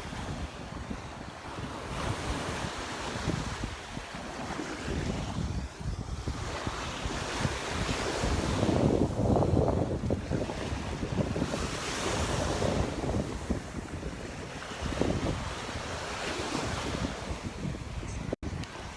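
Gulf surf washing onto the beach, the waves swelling and receding every few seconds and loudest about halfway through, with wind buffeting the microphone.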